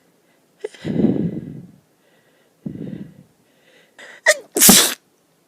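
Allergy sneeze building up: two heavy inhales, then a short catching gasp and one sharp, loud sneeze near the end.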